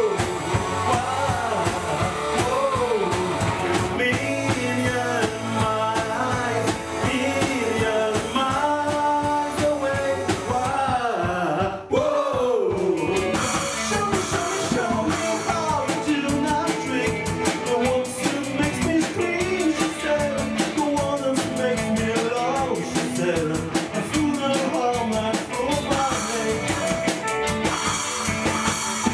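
Live pop-rock band playing: singing over electric guitar, bass guitar and drum kit. About twelve seconds in the music breaks off for a moment, then comes back in fuller, with more cymbal.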